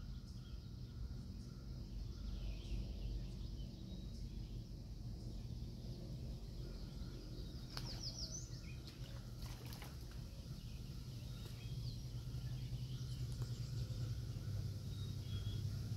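Quiet outdoor ambience: a low steady rumble with faint scattered bird chirps, a short run of rising chirps about halfway through, and a couple of sharp clicks around the middle.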